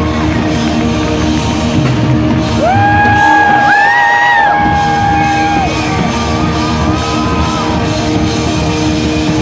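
Live rock band playing loudly in a large hall. About two and a half seconds in, a long held lead note slides up and rings for about three seconds over the band.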